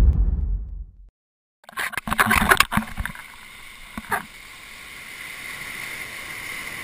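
A deep boom fading out over the first second, then a short silence. From about two seconds in, water splashing and rushing against an action camera's waterproof housing as it rides along a breaking wave, with a knock about four seconds in, settling into a steady hiss.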